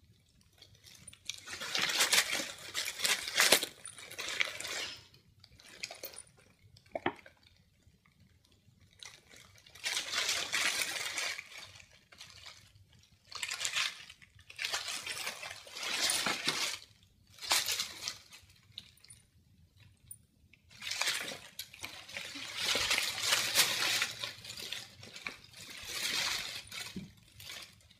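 Crinkling and rustling of clear cellophane and metallic foil gift wrap as a cat noses and paws into it. It comes in several bursts of a few seconds each, with short quiet gaps between them.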